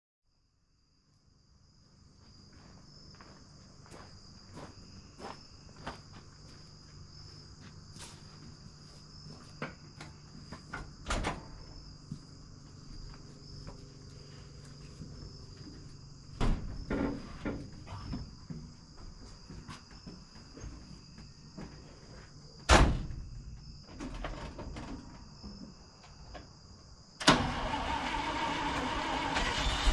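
Steady, high-pitched insect chirring, with scattered clicks and knocks. Near the end, a louder steady noise cuts in abruptly.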